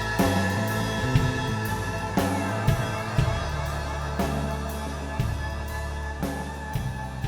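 Background rock music with a drum kit and guitar, keeping a steady beat.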